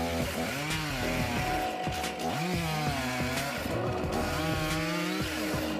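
Chainsaw engine revving up and down several times, with background music underneath.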